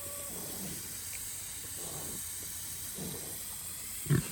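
Steady hiss of a water mister spraying, with a short thump about four seconds in.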